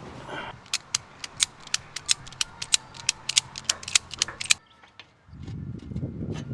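A ratchet clicking rapidly, about five clicks a second, for close to four seconds. The clicking stops, and after a short pause a low, rough rumble starts near the end.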